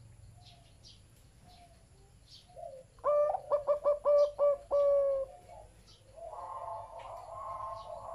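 Zebra dove cooing: a quick run of short coos ending in one longer held coo, about three seconds in. Fainter cooing follows from about six seconds, with faint chirps of small birds.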